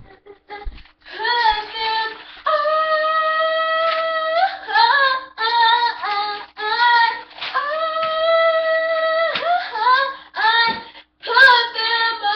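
A young girl singing long held notes that bend at the ends of phrases, starting about a second in, with short breaks between phrases.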